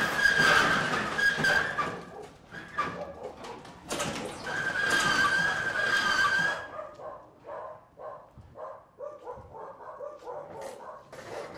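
A high, drawn-out animal cry, heard at the start and again about five seconds in, each lasting about two seconds; after it, a string of faint, uneven knocks.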